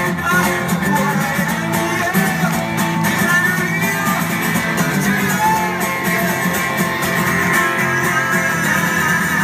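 Acoustic guitar played live with singing, heard from among the audience.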